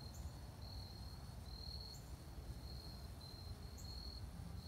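Crickets chirping: short high chirps of one steady pitch, about twice a second, over a faint low background rumble.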